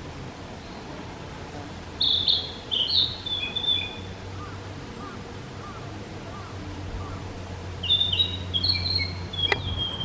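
Meadow bunting singing two short, quick phrases of varied high notes, several seconds apart, over a steady low rumble of forest background. A single sharp click sounds near the end of the second phrase.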